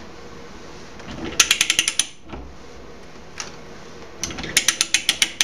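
Ratcheting pipe threader clicking as its handle is swung to cut threads on a pipe: two runs of rapid pawl clicks, one about a second and a half in and another near the end.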